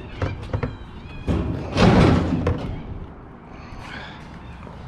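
A door banging: a couple of light knocks, then a loud rattling slam about a second and a half in, over background music.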